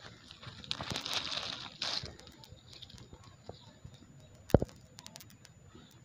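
Clear plastic bag of collected litter crinkling as it is handled, then a single sharp click with a few small ticks after it.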